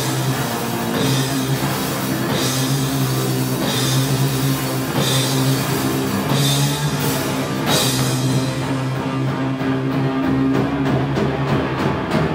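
Two-piece heavy rock band playing live: electric guitar holding heavy, sustained low notes under a drum kit, with cymbal crashes about every second and a half. Near the end the drumming speeds up into rapid hits.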